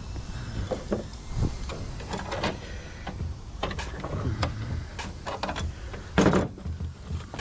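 Irregular clanks, knocks and rattles of metal and plastic parts being pulled apart and handled by hand while an appliance is stripped for scrap, with the loudest knock about six seconds in.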